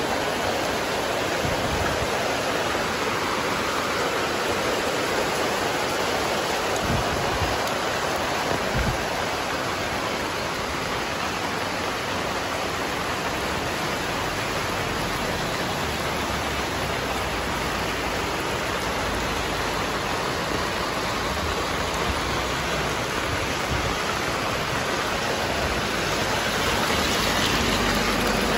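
Heavy rain falling steadily on the street and roofs, an even, unbroken hiss, with a couple of brief low bumps about seven and nine seconds in.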